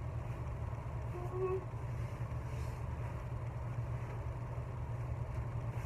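Steady low background hum with even room noise and no distinct events.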